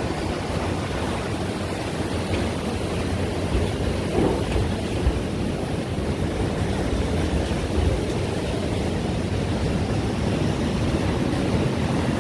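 Steady wind buffeting the microphone over the wash of ocean surf.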